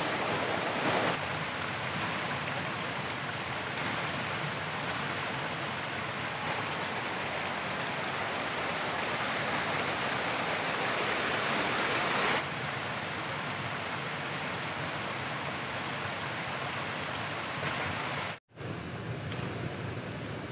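Mountain stream cascading over rocks: a steady rush of running water. It cuts out for a moment near the end and comes back quieter.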